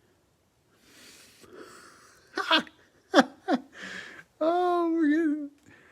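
A man's wordless vocal reaction: a breathy exhale, a few short falling voice sounds, then a drawn-out wavering groan of disappointment.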